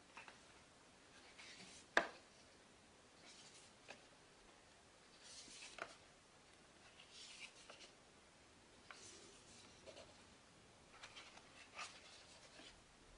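Faint rustling and sliding of paper as the folded pages of a photobook are handled and turned by hand, in short swishes every second or two, with a sharp tap about two seconds in and a few lighter ticks.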